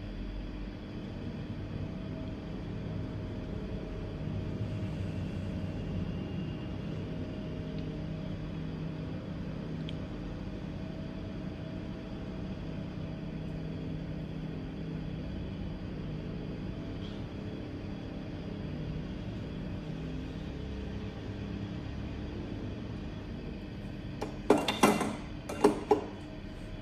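Steady low hum of a small motor or fan, with a quick cluster of sharp clicks near the end.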